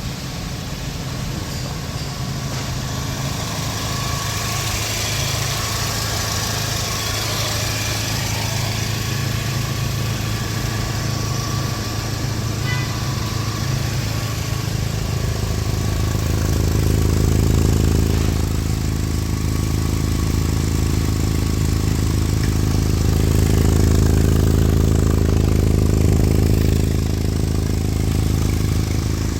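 Car engine idling with a leaking, rusted exhaust: a steady low exhaust rumble that grows louder and fuller a little past halfway, with a couple of swells near the end.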